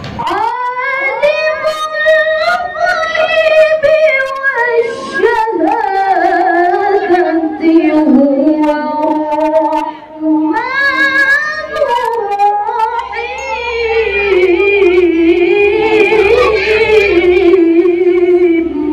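A woman qoriah reciting the Quran in melodic tilawah style through a microphone, with long held notes that wind up and down in ornamented runs. She breaks for a short breath about ten seconds in.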